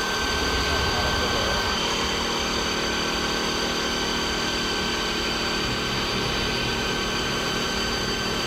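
CNC wood lathe's variable-frequency spindle motor running steadily, a constant whine of several high tones over a low rumble.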